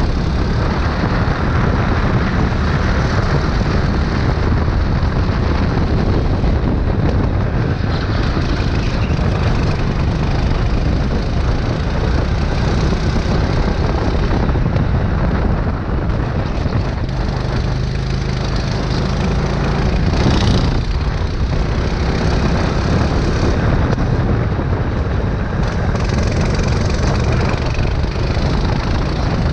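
Go-kart engine running at racing speed, heard from a camera mounted on the kart, with a steady rush of wind and track noise; a brief sharp knock about two-thirds of the way through.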